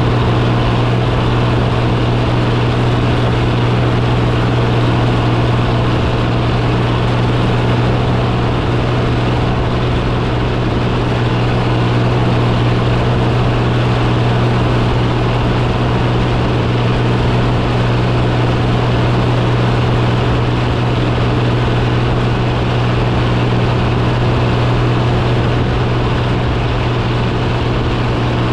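Oliver 1955 tractor engine running steadily at a constant pitch as the tractor drives across the field, heard from the seat.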